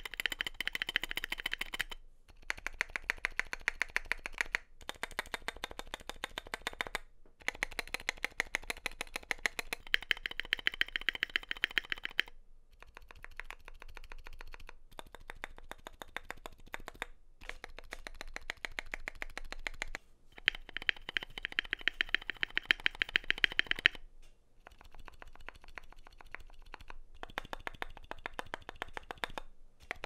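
Typing on an Epomaker GK68XS 65% keyboard with Akko CS tactile switches and Akko ASA keycaps, dampened with PE foam and StP 5k, its stabilisers lubed partway through. Fast runs of key presses, spacebar included, a few seconds at a time with short pauses, some runs softer than others.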